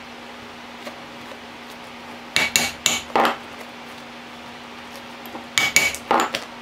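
A mallet striking a steel round hole punch to drive holes through the bag's leather rim: two quick runs of about four sharp metallic knocks each, a little over three seconds apart.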